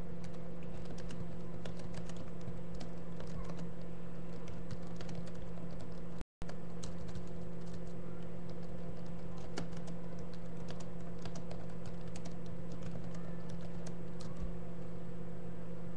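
Typing on a computer keyboard: irregular key clicks over a steady low electrical hum. The audio cuts out completely for a moment about six seconds in.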